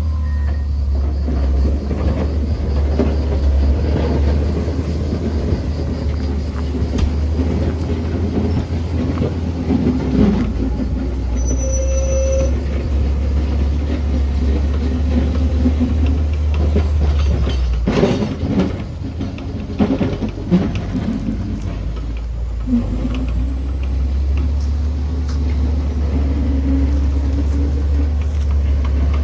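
John Deere motor grader's diesel engine running under load, with clanks and rattles from the machine as it works. The engine eases off for a few seconds about two thirds of the way in, then picks up again.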